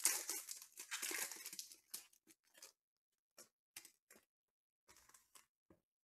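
The foil wrapper of a Panini Prizm football card pack tearing open and crinkling for about two seconds. It is followed by short scattered rustles and light taps as the cards are slid out and set down.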